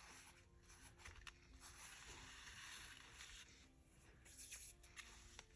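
Faint rustling of paper being handled, with a few light taps.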